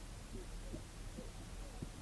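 Faint, brief voice sounds over a steady low room hum.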